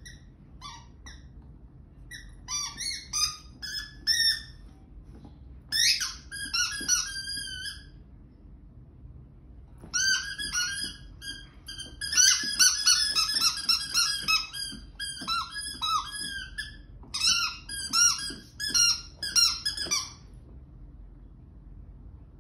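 Squeaky plush dog toy squeaking in rapid runs as an Irish Wolfhound puppy chews it, with short pauses between the runs. The longest and busiest run is about ten seconds in the middle. It stops about two seconds before the end.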